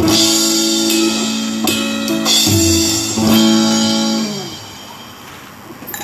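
Band sound check: guitar chords strummed and held, with drums under them. The playing stops about four seconds in and the last chord fades out.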